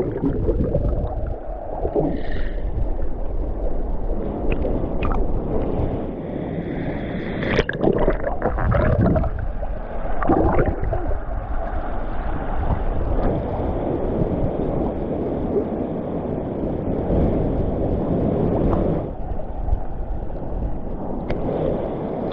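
Water at a waterfall's plunge pool, gurgling and sloshing, with the steady rush of falling water. It sounds muffled and low, as from a camera in or at the surface of the water.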